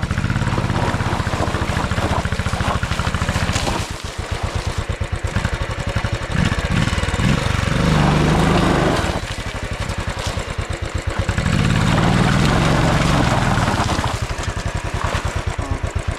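Royal Enfield 500's single-cylinder engine running at low revs with an even beat of firing pulses, the motorcycle being ridden off-road. The throttle is opened up twice, about halfway through and again later, each time louder for a couple of seconds.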